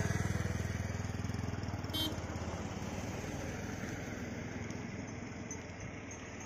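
A vehicle engine running with a low, rapid pulse that slowly fades.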